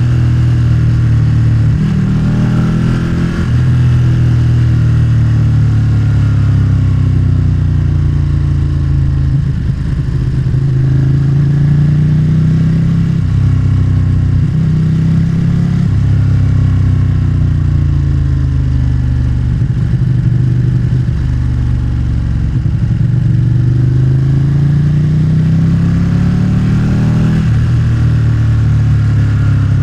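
Motorcycle engine running under way, its pitch repeatedly climbing as it accelerates and then dropping back, as with gear changes, over a steady rush of wind and road noise.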